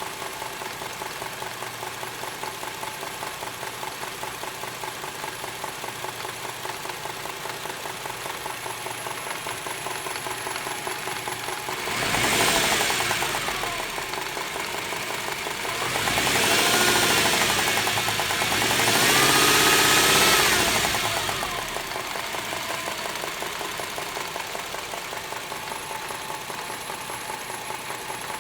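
Subaru EZ30 flat-six engine idling with a fast, even knocking, revved up and back down three times in the middle. The owner suspects the knock is rod knock.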